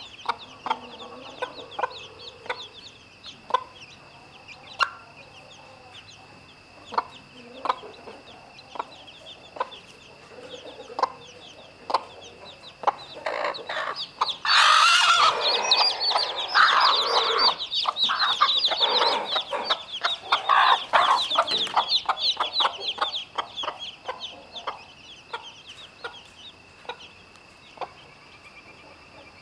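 Chickens: a hen clucking among peeping chicks, with a loud, dense stretch of squawking and clucking lasting several seconds about halfway through.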